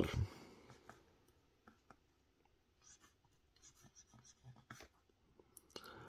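Staedtler Mars Micro 0.5 mm mechanical pencil writing on grid notebook paper: the faint scratch of the lead in short, separate strokes.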